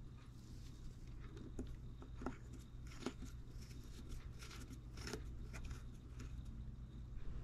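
Faint scattered clicks and scrapes of a nut driver turning small brass nuts down onto the brass steam chest cover of a model walking beam steam engine, over a low steady hum.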